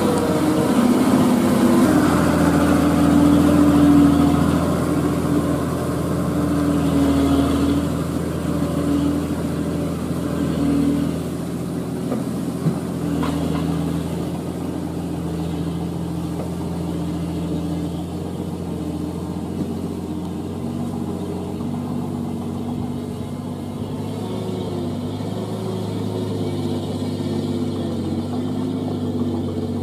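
Old Toyota dump truck's engine running under a heavy load of rock as the truck passes and pulls away on a dirt road, loudest at first and fading as it draws off. A single sharp knock sounds near the middle.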